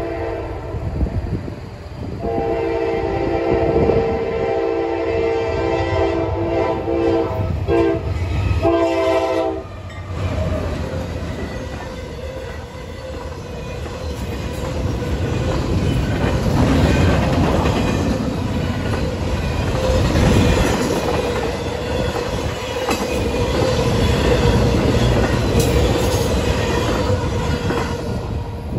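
A Nathan K5LA air horn on a Norfolk Southern AC44C6M locomotive sounds in several blasts over the first ten seconds, a long one followed by two short ones, as the train reaches the grade crossing. After that comes the steady rumble and wheel clatter of a short intermodal train rolling past, its well cars carrying containers.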